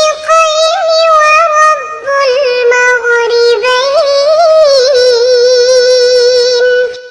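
A young girl's high voice reciting a Quranic verse in a melodic, sung style, with long held notes and ornamented turns. It ends on a long held note that fades out near the end.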